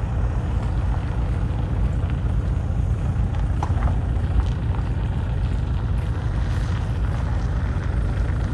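Wind buffeting the microphone outdoors: a steady, fluttering low rumble, with a few faint ticks about halfway through.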